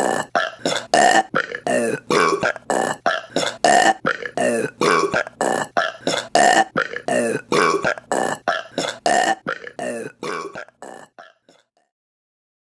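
A fast run of short burps, two or three a second, growing fainter near the end and stopping.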